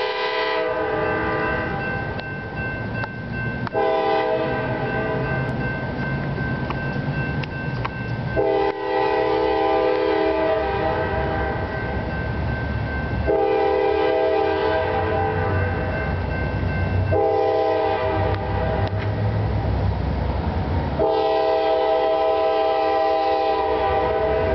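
Air horn of an approaching CSX GE AC4400CW diesel freight locomotive sounding about six long blasts separated by short gaps, over the low rumble of the diesel engines, which grows stronger as the train nears.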